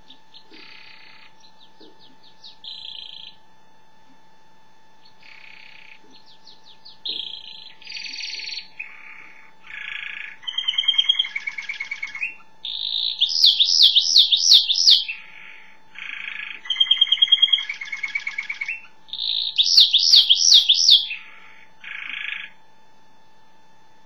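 Domestic canary singing a long song of trills and rapid repeated notes. It starts softly, pauses briefly, then builds, and is loudest in two fast trills, one about halfway through and one some six seconds later.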